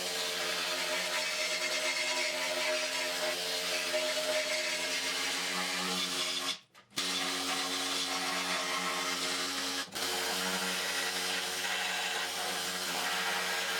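Handheld power tool running steadily as it scours rust off a steel car frame: a motor whine over a rough, scraping hiss. It cuts out for a moment about six and a half seconds in and dips briefly near ten seconds.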